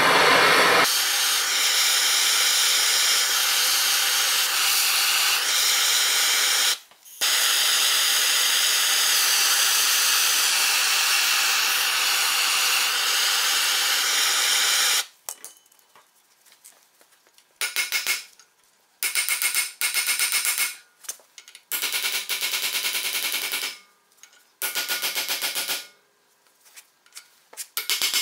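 Hand-held propane/MAPP gas torch burning with a loud, steady hiss, heating a rusted, seized part of a Dana 44 front hub to free it. It breaks briefly about seven seconds in and stops after about fifteen seconds. Then come about five short rattling bursts, each about a second long and made of rapid repeated blows.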